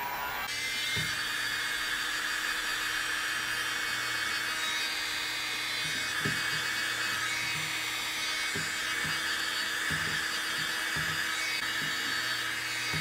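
Electric hot-air blower running steadily, a motor whine over the rush of blown air, shrinking heat shrink tubing over freshly soldered wire joints. A few faint knocks of handling come through under it.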